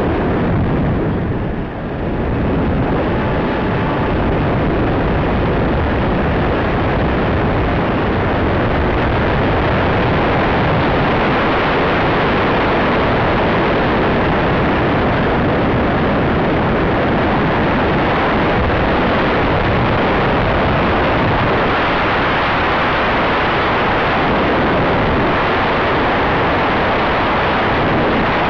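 Steady loud rush of airflow over the microphone of a camera riding on a Bixler RC plane as it dives and tumbles, with a brief dip about two seconds in.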